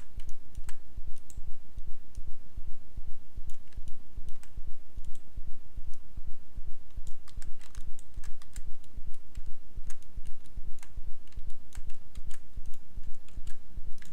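Computer keyboard keys and clicks tapping at irregular intervals while shortcuts are entered, over a loud low hum that pulses about three times a second.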